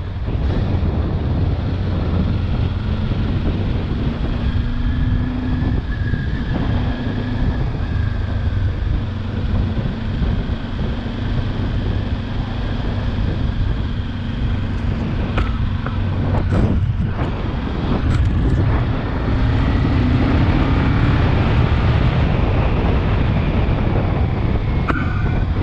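Wind rushing over a helmet-mounted microphone, with a Kawasaki Ninja 400's parallel-twin engine running underneath at steady cruising speed in fourth gear.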